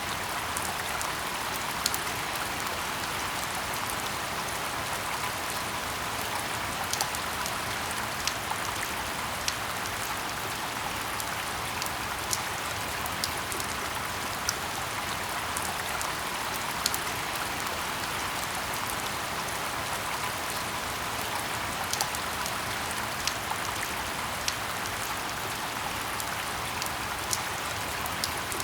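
Steady rain falling in a forest: an even hiss with scattered louder drops ticking through it every second or two.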